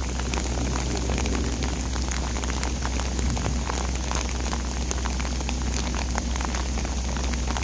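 Heavy rain pouring down, with many sharp clicks of close drops striking, over a steady low rumble.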